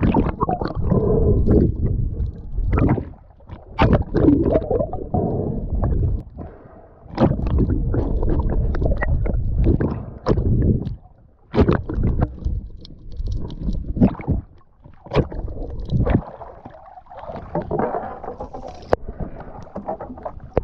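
Water sloshing and gurgling around an action camera in the sea, in irregular surges, with scattered knocks against the camera housing.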